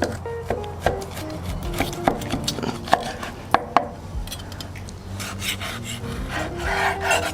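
A knife sawing through the crisp, deep-fried crust of a porterhouse steak on a cutting board: rasping strokes with scattered sharp knocks and scrapes.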